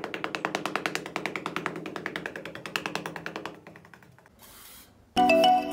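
Small metal hand hoe scraping and chopping into fine sand in quick, even strokes, about ten a second, fading out a little over halfway through. A short hiss follows, then chiming music begins near the end.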